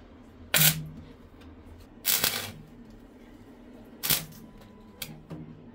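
A hand tool knocking and scraping at a mud-plastered wall during electrical work: five sharp cracks, the second a longer scrape lasting about half a second.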